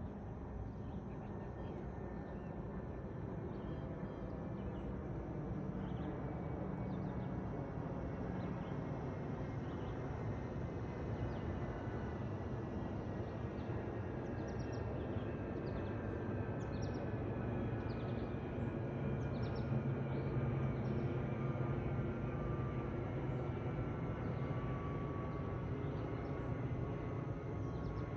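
Twin-engine jet airliner passing overhead at height: a steady rumble of jet engine noise that slowly grows louder, with a faint whine gliding slowly downward in pitch. Faint bird chirps from about halfway on.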